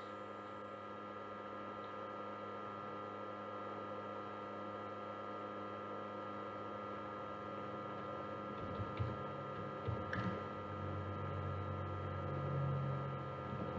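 Steady low electrical hum with several fixed tones, with a few faint clicks and some low rumbling in the second half.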